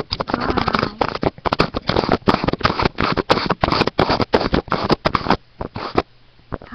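Handling noise right at the microphone: dense, irregular scraping and crackling, stopping about five and a half seconds in.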